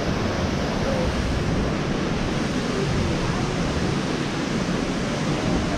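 Steady rushing noise of a waterfall pouring into a pool, with wind buffeting the microphone in an uneven low rumble.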